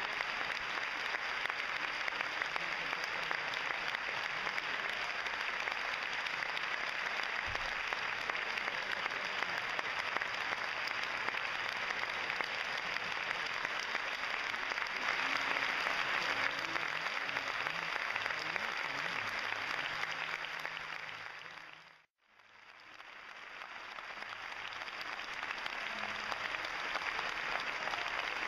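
A large audience applauding steadily in a theatre hall, a long ovation. About three quarters of the way through the applause fades out and then fades back in.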